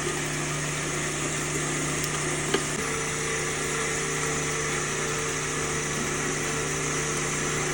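A small power tool's motor running steadily with an even hum. A single click comes about two and a half seconds in, and a second, higher steady tone joins just after it.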